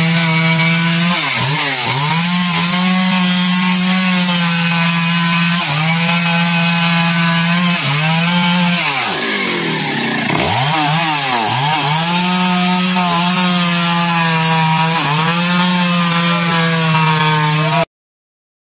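Stihl two-stroke chainsaw running at high revs while cutting wood. Its pitch dips again and again as the chain bogs under load and climbs straight back. It stops abruptly near the end.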